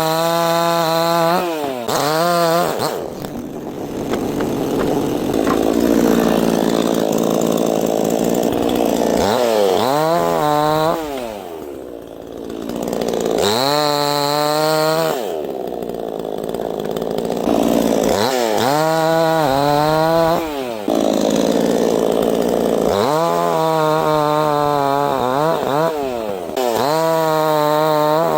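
NEOTEC 68cc two-stroke gas chainsaw revving up and down, its pitch rising and falling, alternating with longer stretches of cutting through wood, several times over.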